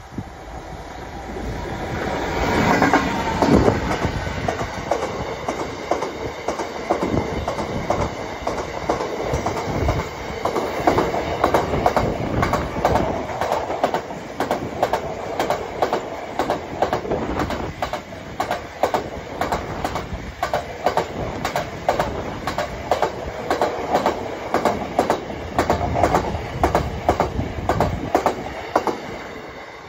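Freight train passing close by: a diesel locomotive comes up and goes past in the first few seconds, then a long rake of biomass hopper wagons follows with a steady rumble and rhythmic clicks of the wheels over the rail joints. The sound falls away near the end as the last wagons go by.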